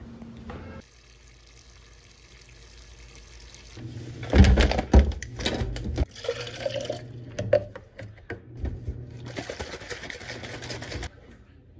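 Supplement bottle and foil protein-powder bag handled on a stainless-steel kitchen counter: loud knocks and thuds about four to five seconds in as they are set down, then scattered clicks and crinkling.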